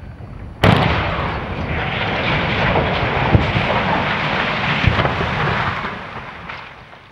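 Demolition of a concrete water tower: a sudden blast about half a second in, then a long crash of breaking concrete as the tower topples and hits the ground, dying away near the end.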